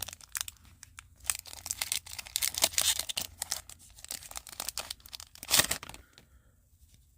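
A foil booster pack of Gundam trading cards being torn open, the wrapper tearing and crinkling in quick irregular crackles that stop about six seconds in.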